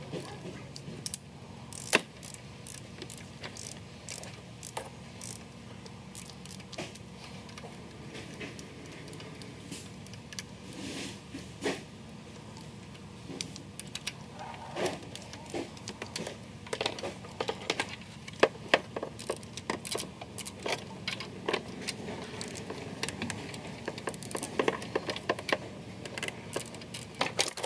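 Irregular metallic clicks and clinks of a ratcheting torque wrench and socket working on cylinder head bolts, coming thicker in the second half, over a faint steady low hum.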